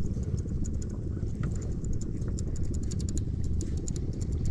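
Wind buffeting a body-worn camera's microphone: a low, uneven rumble, with quick faint ticks and clicks over it throughout.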